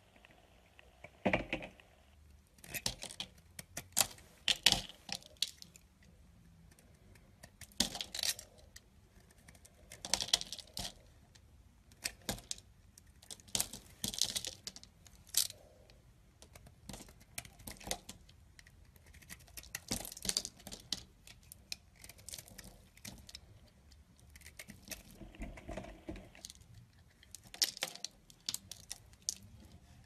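Utility knife blade shaving flakes and curls off a bar of soap, each cut a short crisp crackling scrape, repeated in irregular strokes every second or two.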